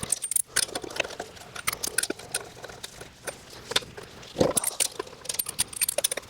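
Metal lug nuts clinking and rattling as they are handled and threaded onto a wheel's studs: a run of short, sharp metallic clicks.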